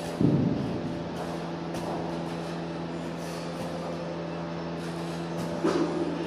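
Medicine balls caught with a heavy thud during wall-ball shots about a quarter second in, with another, smaller thump near the end, over a steady low hum.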